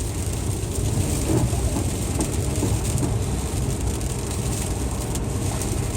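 Car driving slowly on a snow-covered, slippery road, heard from inside the cabin: a steady low rumble of engine and tyres.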